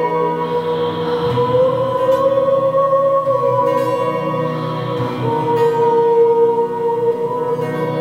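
A woman singing long held notes over an electric guitar, recorded on a camera's built-in microphone. The sung pitch steps up about a second and a half in and shifts again about five seconds in.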